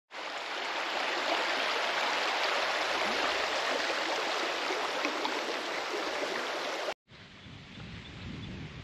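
Steady rush of flowing stream water, cutting off abruptly about seven seconds in. A lower rumble then starts and slowly grows.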